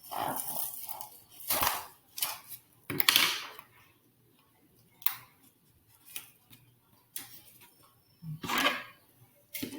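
Irregular rustling, tapping and clicking of hands handling flower stems and craft materials, a few louder scrapes and knocks among quieter gaps.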